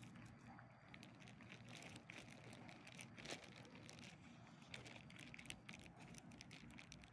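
Near silence, with faint scattered small clicks and rustling.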